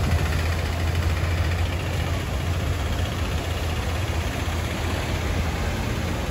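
Heavy army truck engine running with a steady low hum as vehicles drive through floodwater, with the wash of water around the wheels.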